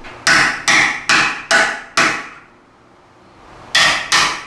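Hammer striking a socket extension fitted with a 24 mm socket, driving lock tabs into a Chevrolet S10 frame's control-arm mount. There are five sharp metal strikes about two a second, a pause, then two more strikes near the end. The tabs are being seated so the control-arm bolts can't spin when tightened.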